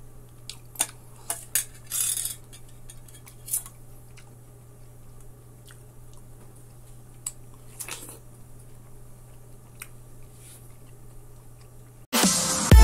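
Metal spoon clicking and scraping against a stainless steel bowl as melon is scooped, then quieter bites into a juicy melon slice. Loud electronic music starts abruptly near the end.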